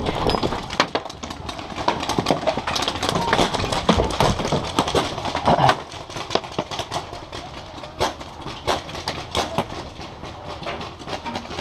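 Paintball markers firing across the field: an irregular crackle of sharp pops, dense and louder for about the first six seconds, then sparser.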